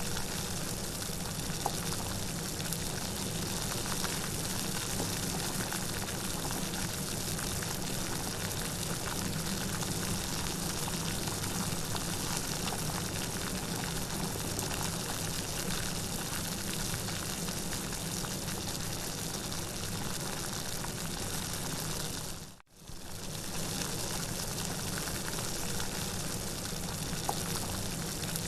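Steady, even rain noise with no thunder, dropping out for a split second about three-quarters of the way through.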